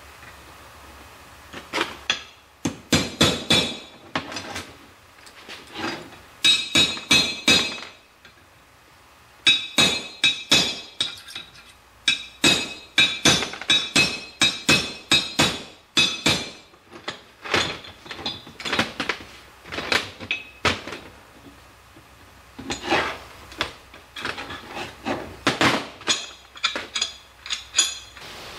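Steel parts of an idler-arm pin assembly clinking and knocking together and against a workbench as they are fitted by hand. Runs of quick, sharp metallic strikes, some ringing, with short pauses between them.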